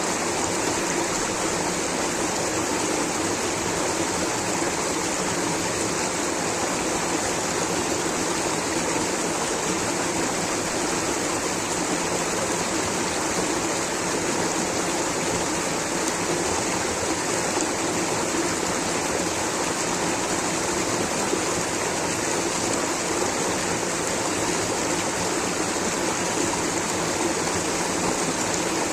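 Rushing water of a stream or small waterfall: a steady, unbroken rush with no change in level.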